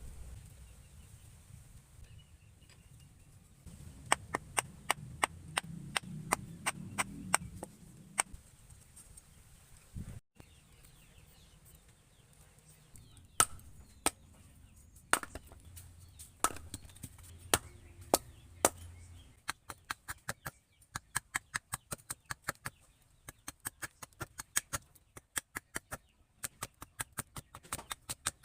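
Hammer blows on steel on an anvil while forging a machete blade: a run of about a dozen strikes, then a slower string of evenly spaced single blows, then a long, fast run of lighter strikes near the end.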